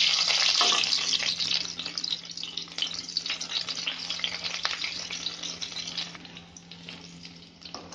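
Chopped garlic sizzling in hot mustard oil in a kadhai. It is loudest as the garlic goes in and fades steadily over several seconds, with a wooden spatula knocking against the pan now and then.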